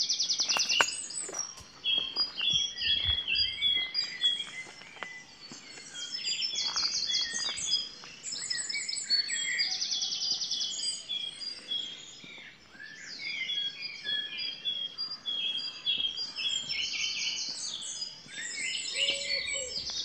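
Dawn chorus of several songbirds singing at once: a great tit repeating its 'choo choo choo' notes and a wren's fast, high trilling song coming in again and again.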